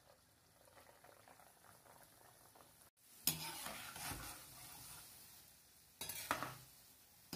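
Gulab jamun deep-frying in hot oil in a pan. A faint crackle at first; after a break about three seconds in, the oil bubbles louder and busier around the pieces, with a slotted spoon stirring them. The sizzle jumps louder again about six seconds in.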